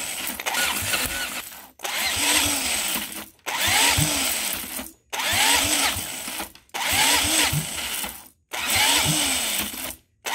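Electric drill spinning the see-through Briggs & Stratton single-cylinder engine over by its flywheel nut. It runs in repeated bursts of about a second and a half with brief pauses between. The engine fires a little with some kickback but does not catch, a sign that the ignition timing is off.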